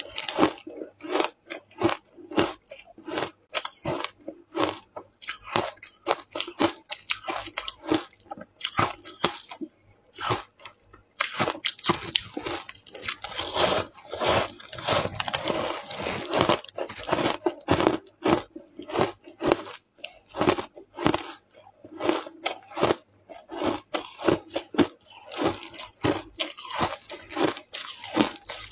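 Ice coated in matcha powder being bitten and chewed: rapid, sharp crunches of ice breaking between the teeth. The crunching pauses briefly and then turns into a dense run of grinding crunches as a big chunk is bitten off.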